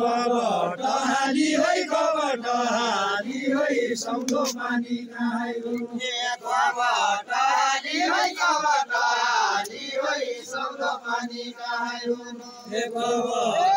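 A group of men singing a Deuda folk song together in a chant-like unison, the sung phrases rising and falling without a break.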